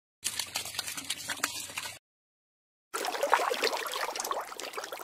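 Bubbling, gurgling water sound effect in two stretches, cut off dead for about a second between them.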